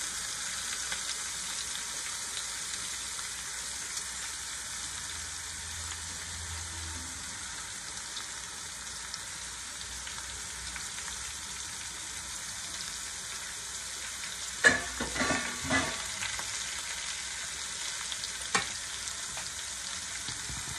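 Shredded cabbage sizzling in hot oil in a metal pot: a steady frying hiss. A short run of clatters comes about two-thirds of the way through, and one sharp knock near the end.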